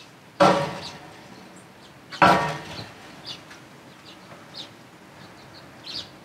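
Two loud metallic clangs about two seconds apart, each ringing out for about half a second: a metal protein feeder being butted by an aoudad ram knocking pellets out. Faint bird chirps in the background.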